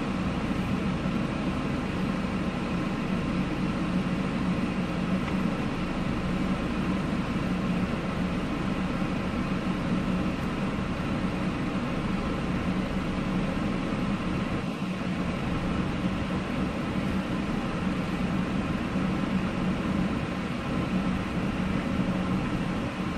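Car driving slowly with its engine running steadily, a low steady hum over even road and wind noise, as it tows a skier on a rope.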